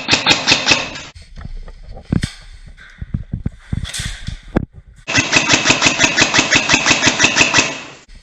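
Airsoft guns firing: a short full-auto burst, a few scattered single shots, then a longer burst of about three seconds of rapid, evenly spaced shots.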